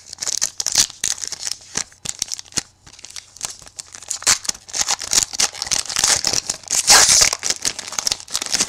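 Foil trading-card pack wrapper being torn open and crumpled by hand: a dense crinkling and tearing, loudest about seven seconds in.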